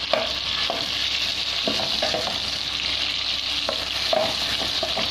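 Longganisa sausages frying in oil and butter in a pan, a steady sizzle with a few short clicks scattered through it.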